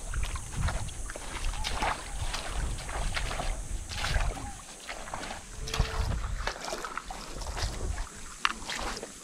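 Water splashing and sloshing in a shallow stream, with many irregular small splashes and clicks and a low wind rumble on the microphone.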